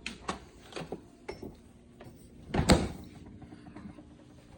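Light clicks and knocks of handling, then one louder thump about two and a half seconds in: a refrigerator door closing.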